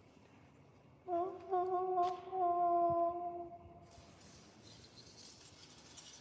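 A long hum at one steady pitch. It starts about a second in and holds for about two and a half seconds before fading.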